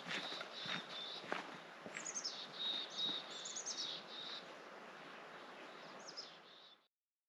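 Footsteps on a dirt forest trail, a few clear steps at first, then fading as the hiker walks away. Songbirds sing over a steady outdoor hiss, with quick runs of falling high notes a few times. The sound cuts off suddenly near the end.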